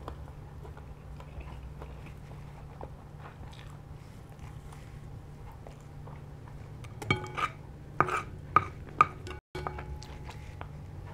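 Quiet chewing of spaghetti over a steady low hum, then, from about seven seconds in, a quick run of sharp ringing clinks as a metal fork and spoon knock against ceramic plates.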